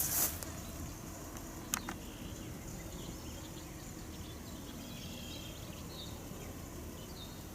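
Steady outdoor background noise with no siren tone left in it. There is a brief rustle at the very start, a single sharp click just under two seconds in, and a few faint, short, high chirps near the middle.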